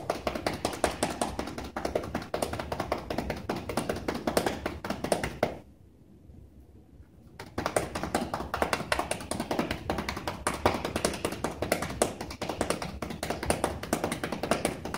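Chest percussion: cupped, gloved hands clapping rapidly and rhythmically on the side of a patient's chest to loosen lung secretions. It stops for about two seconds just before the middle, then resumes.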